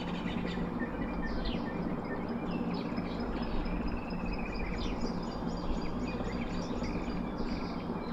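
Several birds chirping and calling in quick, short notes and falling whistles, over a steady low hum and background noise.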